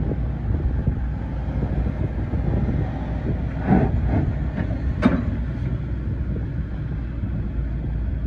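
Hitachi ZX130LCN-6 14-tonne excavator tracking forward, its diesel engine running steadily under the rumble of the steel tracks, with two sharper knocks about four and five seconds in.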